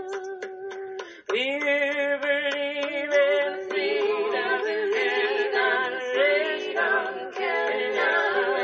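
Group of voices singing a cappella in harmony, holding long sustained notes, with a brief break and a new chord about a second in.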